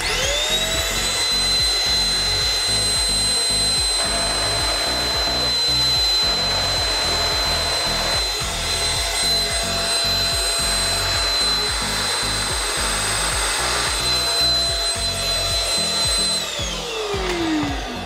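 Handheld anti-dust-mite vacuum cleaner's motor switched on, spinning up with a rising whine, then running steadily with a high whine and rushing air. About two seconds before the end it is switched off and winds down with a falling whine.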